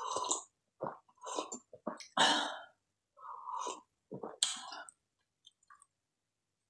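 A person sipping tea from a mug: a string of short slurps and swallows, about eight of them over the first five seconds.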